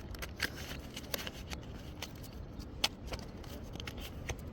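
Strong wind rumbling and buffeting on the microphone, with scattered small clicks and rustles.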